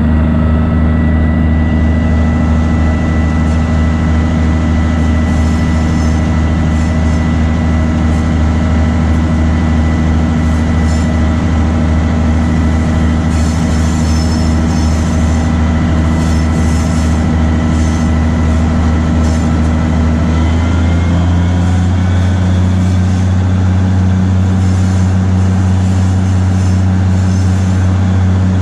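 Diesel engine of a 1943 GE 80-ton switcher locomotive running steadily as the locomotive travels along the track. Its note changes about two-thirds of the way through, and there are faint high squeals around the middle.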